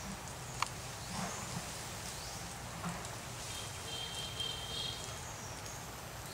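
Forest ambience: a steady hiss with a single sharp snap about half a second in, and a high, rapidly repeated chirping call from an animal from about three and a half to five seconds in.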